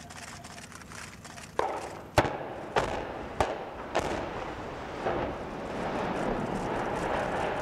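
Explosive demolition charges going off in a quick series of five sharp bangs a little over half a second apart, starting about one and a half seconds in, followed by a steady rumble as the steel launch-pad service towers topple.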